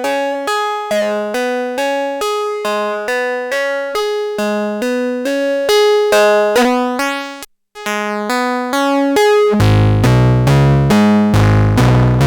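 Make Noise 0-Coast synthesizer playing a run of short pitched notes, about three a second, with its slope section synced to the oscillator in cycle mode. The sound cuts out briefly about two-thirds of the way in, then returns with a much heavier low end.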